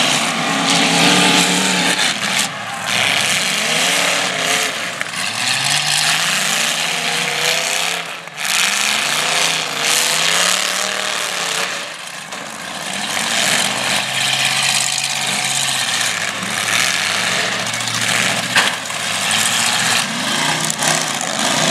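Several demolition derby cars' engines running hard, their pitch rising and falling over and over as the drivers accelerate and back off on the dirt arena.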